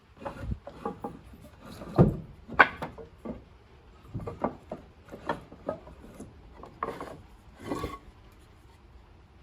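Short wooden 2x4 offcuts knocking and scraping against each other as they are sorted through in a scrap pile. The knocks are irregular, with the loudest clatters about two to three seconds in.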